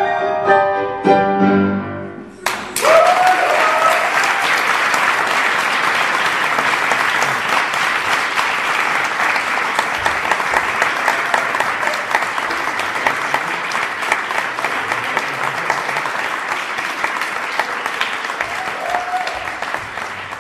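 Violin and piano play the closing notes of a song, which end about two and a half seconds in. The audience then applauds steadily, with a voice calling out just after the applause begins and again near the end.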